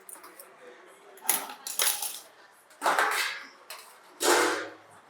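Metal instruments clinking and being handled, four separate short clatters.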